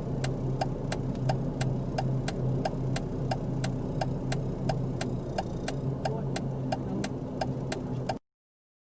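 Vehicle engine idling with a steady low hum, over a fast, even ticking of about three or four clicks a second. The sound cuts off suddenly near the end.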